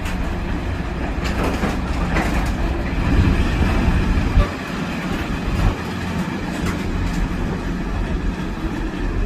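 Train running along the track, its wheels clattering over the rail joints in a steady rumble, loudest about halfway through, with two sharp knocks soon after.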